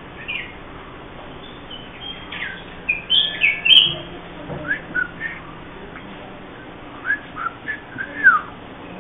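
Bulbul calling: short whistled chirps in bursts, loudest about three to four seconds in, then quick sliding notes about five seconds in and again near the end.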